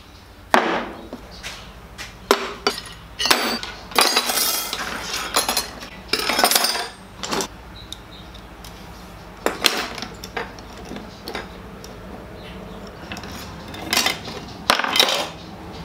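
Metal hand tools (hacksaws, files and steel blocks) being set down and moved about on a wooden workbench: a run of clinks and knocks, with longer clattering spells about four and six seconds in.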